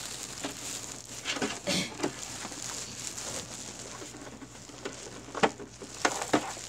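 Plastic wrapping rustling and crinkling as a humidifier's plastic housing is handled, with several short knocks of plastic on plastic, the sharpest near the end.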